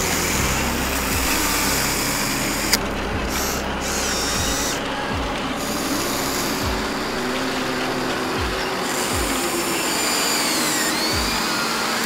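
Huina remote-control toy excavator's electric motors whining as it works its boom and bucket, the whine gliding up and down in pitch, with one sharp click about three seconds in.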